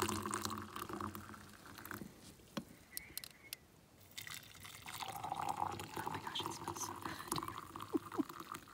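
Hot water poured from a stainless steel camp kettle into a metal tumbler of instant coffee. It stops about two seconds in, and a second tumbler is filled from about five seconds in.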